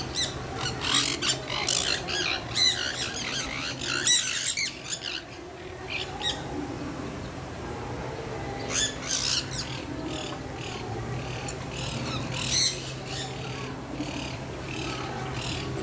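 Birds squawking and calling in quick, harsh bursts. The calls come in clusters, with quieter gaps between them, over a steady low hum.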